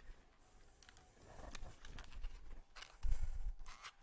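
Handling noises: light clicks and rustles as small items are picked out of boxes on a table, with a dull thump about three seconds in.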